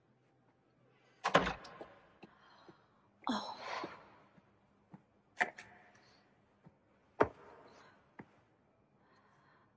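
A door pulled shut with a thud about a second in, followed by a short breathy rustle and a few scattered knocks of movement.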